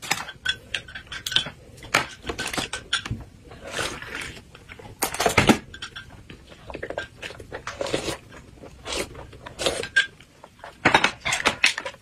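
A spoon and chopsticks stirring drinks in glass cups, giving many light, irregular clinks and taps against the glass.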